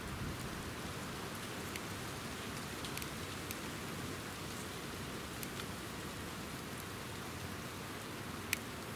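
Steady outdoor hiss of woodland ambience with a few sharp ticks scattered through, the loudest near the end.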